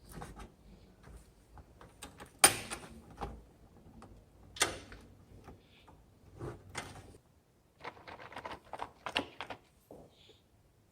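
Clicks, taps and knocks of PC components being handled and fitted inside a computer case. The loudest comes about two and a half seconds in, and a quick run of small clicks follows near the end.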